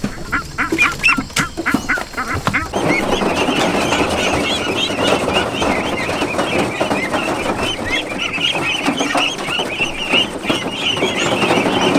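A flock of farm ducks or geese calling: a few separate calls at first, then, about three seconds in, a dense chorus of many birds calling at once.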